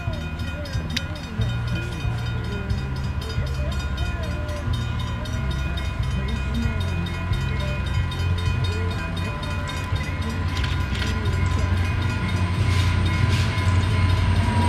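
VIA Rail EMD F40PH diesel passenger locomotive approaching with its train, engine running with a low rumble, and a steady high tone sounding throughout.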